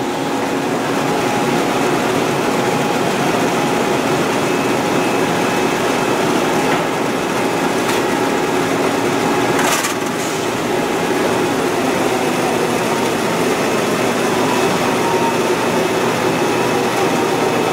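Printing-plant book production line running: a steady mechanical din from the bindery and conveyor machinery with a faint steady hum, broken by a few sharp clacks, the loudest about ten seconds in.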